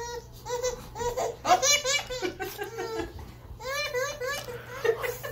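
A baby laughing, in several short bursts of quick repeated laughs.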